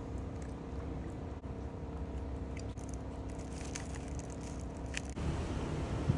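Someone eating out of a plastic bag: light chewing and crinkling of the bag, with scattered small crackles, over a steady low hum. The background noise grows louder about five seconds in.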